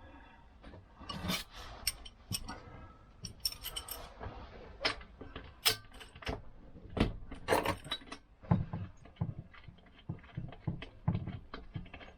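Steel sockets and hand tools clinking and clattering as a socket set is rummaged through: irregular sharp metallic clinks, with some duller knocks near the end.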